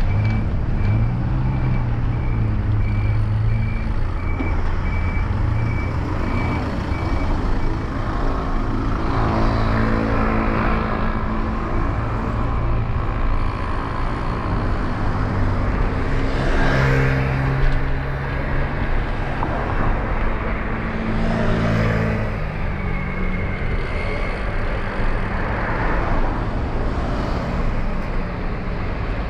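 Street traffic: several motor vehicles pass one after another, their engine note rising and falling, over a steady low rumble. A vehicle's reversing beeper sounds about twice a second at first and stops about a quarter of the way in.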